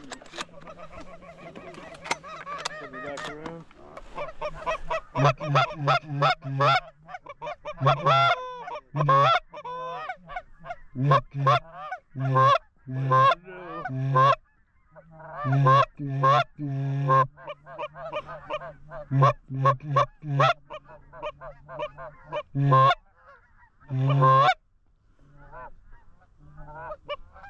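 Canada goose honks and clucks in quick runs of short, loud calls, some very close.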